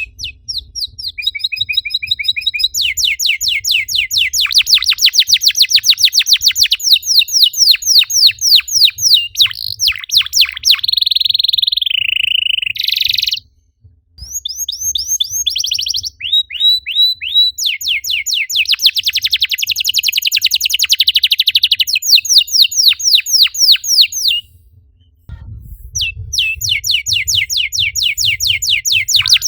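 Domestic canary singing long rolling trills of fast, rapidly repeated high notes, with a few drawn-out warbled phrases, pausing briefly twice.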